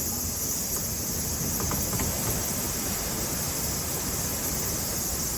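Steady outdoor ambience: a high, continuous insect chorus over a low rumbling wash of noise.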